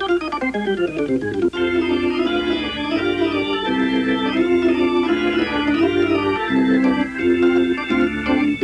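Organ music: a quick falling run of notes in the first second and a half, then held chords with a melody moving over them.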